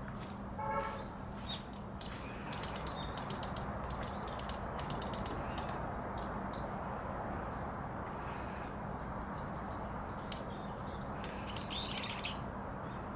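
Japanese pygmy woodpecker: one short buzzy call about a second in, then scattered faint high ticks and a thin chirp near the end, over a steady low background rumble.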